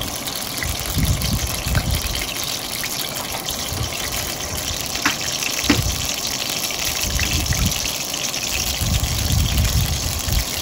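Whole spices sizzling in hot oil in a stainless-steel kadai: a steady frying hiss with low rumbling swells underneath and a couple of sharp pops about five seconds in.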